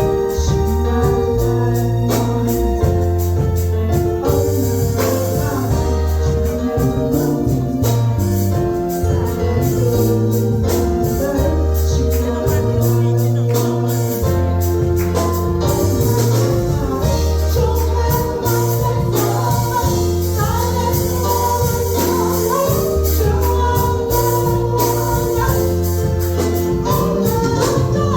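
Gospel song with a lead singer and choir over organ or keyboard chords, a steady bass line and percussion strikes keeping an even beat.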